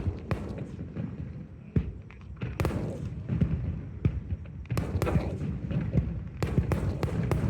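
Fireworks shells bursting overhead: a run of sharp bangs and crackles, coming thicker about halfway through, over a steady low rumble.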